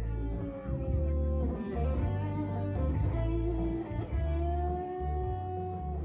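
Live band music: an electric guitar plays long held lead notes, one bending up about four seconds in and held, over a pulsing bass line.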